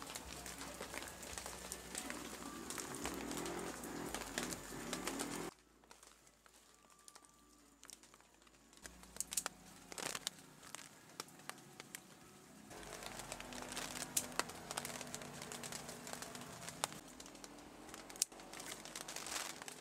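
Birds calling over a steady hiss, with scattered clicks. The sound drops away abruptly about five and a half seconds in and comes back about thirteen seconds in.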